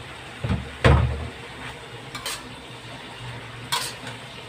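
A metal ladle knocking and scraping against a steel wok as stirring of pork intestines and spice paste begins. Two heavy knocks come in the first second, the second the loudest, followed by a few lighter clinks.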